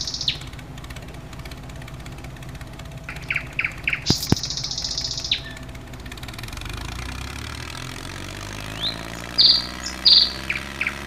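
A bird repeating its song: a few short chirps, then a long buzzy trill. From about six seconds in, a low engine-like hum rises in pitch beneath it.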